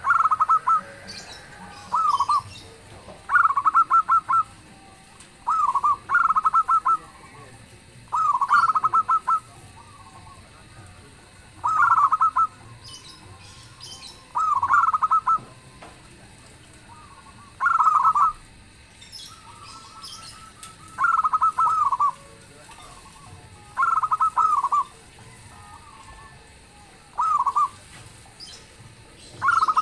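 Zebra dove (perkutut) cooing: short, rapid, trilled coo phrases repeated about every two to three seconds.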